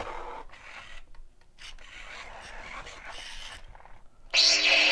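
Motorized Star Wars Legendary Yoda animatronic figure moving its arms and lightsaber: a rough grinding and rubbing of its gear motors and fabric robe. Near the end a much louder buzzing electronic sound effect comes from the toy.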